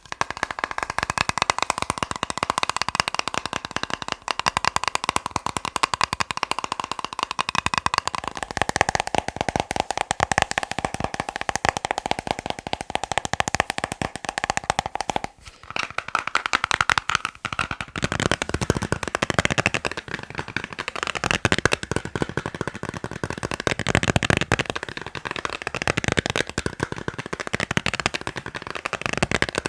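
Fast ASMR tapping on objects: a dense, continuous run of quick taps with a slight ringing tone from the tapped surface. It breaks off briefly about halfway, and the taps take on a different tone after that, as if a new object is being tapped.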